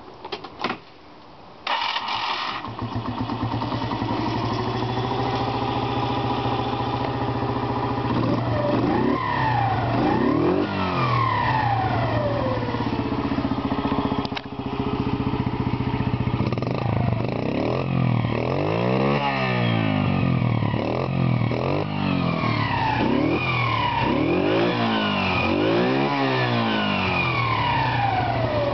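TMS Offroad 50 moped's 50cc engine starting after a few clicks about two seconds in, then idling and revved up and down again and again in repeated throttle blips.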